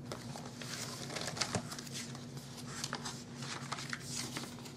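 Paper pages of a spiral-bound planner being handled and turned by hand: a run of soft rustles and light ticks, over a faint steady low hum.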